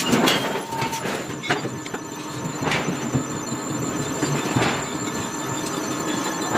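Forging machinery running steadily, with irregular clanks and scrapes of metal on metal, a sharp one every second or two.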